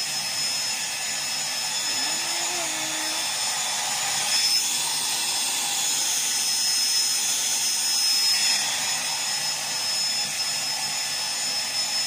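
Handheld hair dryer blowing steadily: a rushing of air with a thin, steady high whine from its motor.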